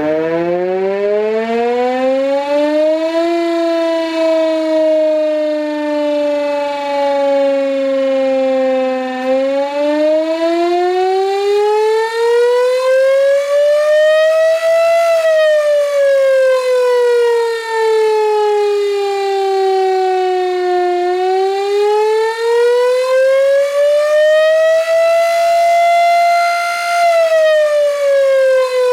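Gryphon BS 2048 electric siren sounding the attack signal. It spins up in the first few seconds, then wails, its pitch gliding slowly up and down and peaking about every 12 seconds.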